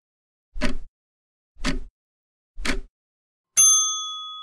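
Quiz countdown sound effect: three ticks, one about each second, then a single bell ding near the end that rings out and fades, marking that the answer time is up.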